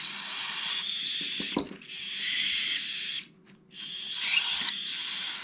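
Baby cockatiel chicks giving their raspy, hissing food-begging call during hand-feeding, broken by a short gap a little past the middle.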